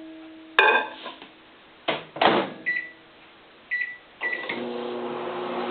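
Microwave oven being started: a latch clunk and a couple of knocks, a few short keypad beeps as a 15-second cook time is set, then about four seconds in the oven starts running with a steady hum.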